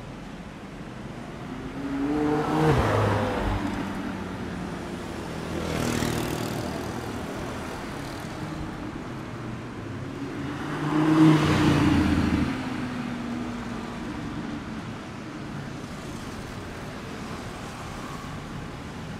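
Supercars driving past in city traffic, among them a red McLaren 720S and a white Lamborghini Huracán. Their engines rev and go by in two loud pass-bys, about three and about eleven seconds in, the second the louder, with a smaller one about six seconds in.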